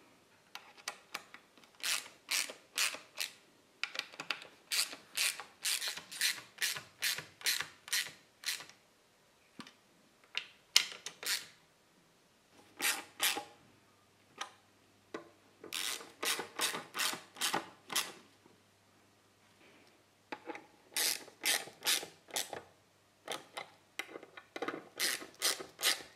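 Socket ratchet clicking as the flyscreen's mounting bolts are run in: quick runs of rasping backstrokes, about three a second, broken by short pauses.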